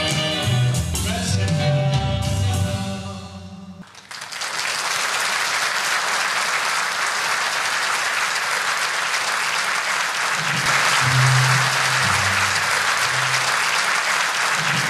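Live show music with a male singer, fading out about four seconds in, then a sudden burst of full audience applause that keeps going. Low bass notes of music come back under the applause near the end.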